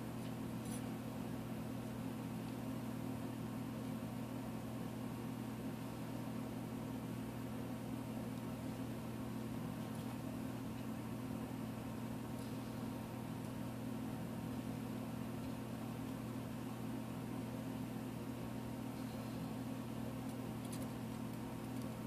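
Steady low hum that holds unchanged throughout, with a few faint ticks now and then.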